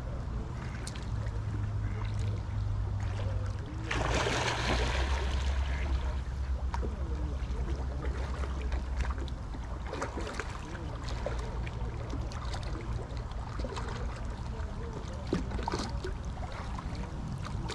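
Water splashing and trickling on a river, with a louder rush of noise lasting about a second, about four seconds in.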